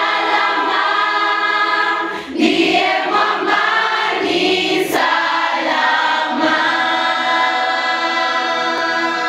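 Choir singing, with long held notes.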